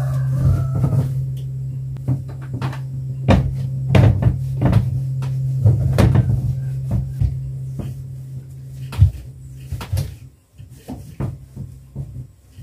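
Wooden wardrobe doors knocking and clicking irregularly in their frames as they are rubbed down with a cloth, over a steady low hum.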